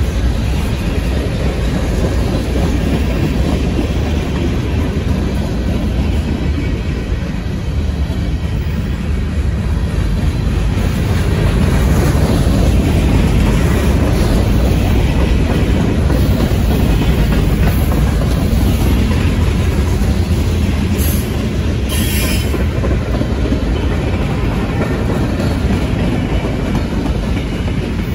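Freight cars of a long mixed manifest train rolling slowly past: a steady low rumble of steel wheels on rail. Two brief high wheel squeals come late on.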